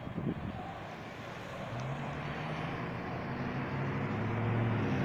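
A vehicle engine running, a steady low hum that starts about a second and a half in and grows louder as it draws closer.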